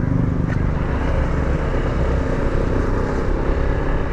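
Honda Vario 160 scooter's single-cylinder engine running steadily under way, with road and wind rumble on the rider's microphone.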